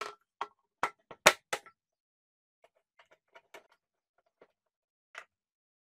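Sharp clicks and knocks of the plastic belt cover and a screwdriver being handled on a walk-behind string trimmer's belt guard: about six quick knocks in the first second and a half, then scattered fainter ticks.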